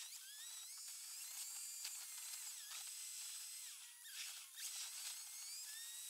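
Car dashcam audio sped up about 36 times, so the engine and road noise become a continuous high, whining chatter with many quick pitch glides rising and falling and nothing low.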